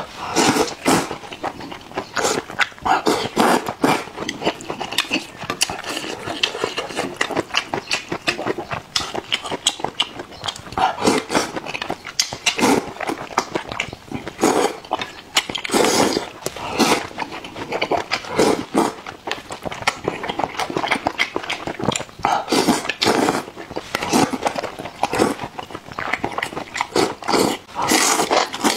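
Noodles slurped and chewed close to the microphone: repeated loud slurps, each a second or so long, with wet chewing between them.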